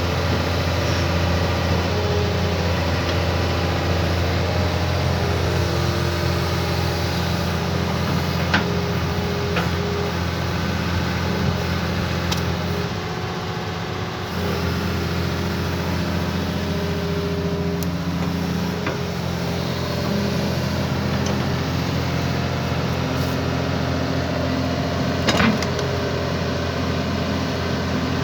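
Hitachi excavator's diesel engine running steadily, dipping briefly about halfway, with a few sharp metallic knocks, the loudest near the end.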